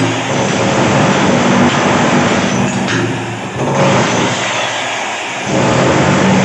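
Electric demolition hammer running loudly against a tiled bathroom wall, breaking off tiles and plaster, its motor hum dipping briefly a few times as the tool is eased off and pressed in again.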